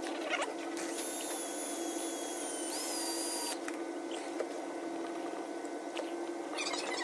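Cordless drill spinning a rubber valve stem against the painted saddlebag to rub off reflector adhesive: a high whine starts about a second in and cuts off sharply about two and a half seconds later, over a steady low hum.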